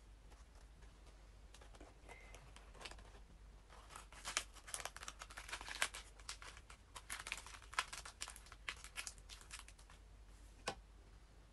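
Crisp iceberg lettuce leaves being torn and crumpled by hand, a dense run of crackling snaps that is busiest in the middle, with a couple of sharper single snaps near the end.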